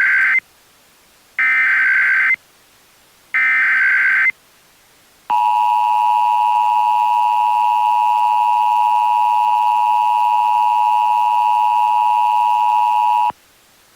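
Emergency Alert System header tones: the tail of one SAME data burst, then two more warbling data bursts of about a second each, a second apart, then the EAS two-tone attention signal held steady for about eight seconds before cutting off sharply. The tones announce an emergency broadcast, here an Amber Alert.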